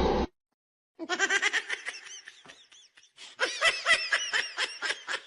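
A person laughing in two fits of rapid, breathy pulses, the first about a second in and the second starting about three seconds in. A snatch of music cuts off abruptly at the very start.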